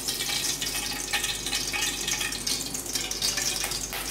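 Oil heating in an aluminium kadai over a lit gas stove burner: a steady hiss with irregular crackling.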